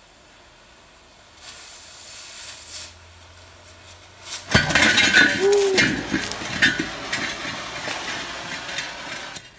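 Oxy-acetylene cutting torch hissing as it cuts through the steel tank wall. About four and a half seconds in, the cut-out round steel disc drops onto the concrete with a loud clang, then rings and rattles as it settles.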